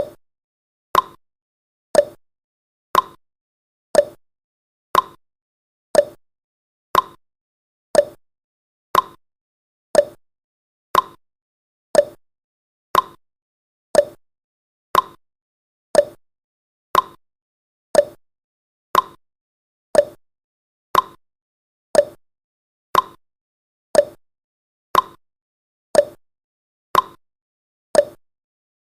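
Countdown timer sound effect: a short, sharp tick once a second, steady and evenly spaced.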